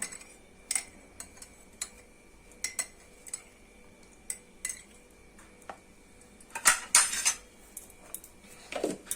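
Metal spoon and cup clinking: scattered light clinks, with a louder clatter about seven seconds in.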